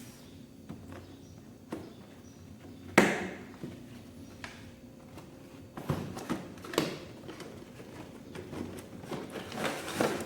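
A clipper box being opened and its packaging handled: a sharp knock about three seconds in, then a cluster of clicks and knocks, and light rustling and ticking near the end.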